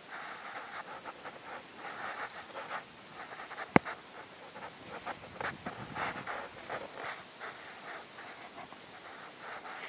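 Footsteps and rustling through dry grass and palm scrub, coming in irregular bursts. One sharp click just under four seconds in is the loudest sound.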